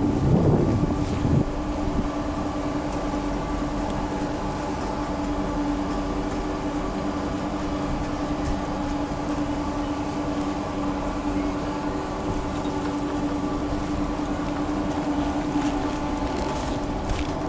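Chairlift top-station machinery running with a steady, pitched mechanical hum. A brief low rumble in the first second and a half, and a few light clicks near the end.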